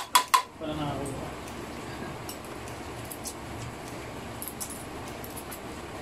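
A metal spoon clinking sharply against a ceramic bowl three times as salad is scooped out, followed by soft eating sounds with faint scattered clicks of utensils.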